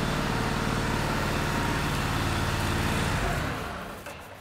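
A motor vehicle's engine running steadily at an even pitch, fading out near the end.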